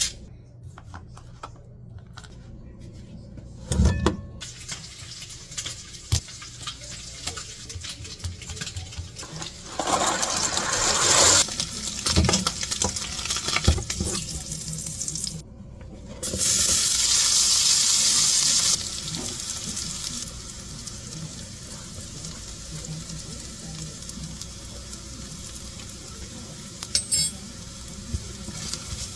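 Cooking sounds: pots, pans and utensils clinking and knocking, water running for a few seconds near the middle, and a pan of sausage sizzling steadily.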